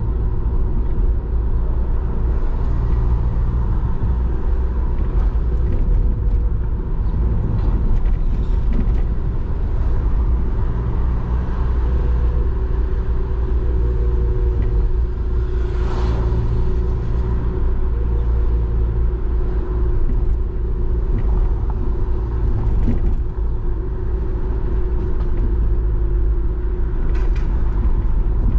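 Steady low rumble of a car driving through city traffic, with road and engine noise, and a brief sharp sound about sixteen seconds in.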